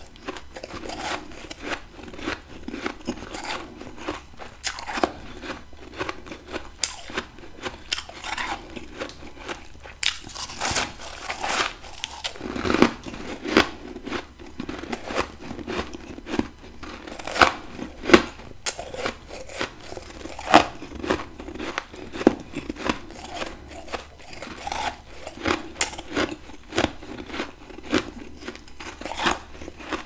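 Close-up crunching and chewing of a mouthful of powdery refrozen humidifier frost from a deep freezer: a steady run of small crackles with louder crunches here and there.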